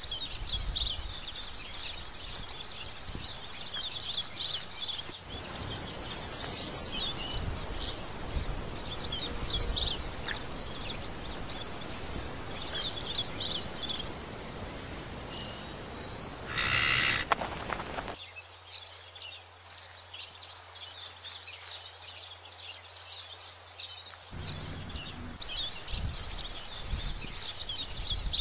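Birds chirping steadily outdoors, with a loud high-pitched call repeated five times about three seconds apart through the middle of the stretch.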